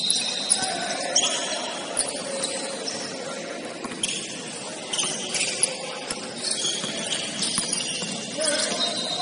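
Basketball game in play: sneakers squeaking on the court floor in short, high squeals, with scattered thuds of the ball and players' voices.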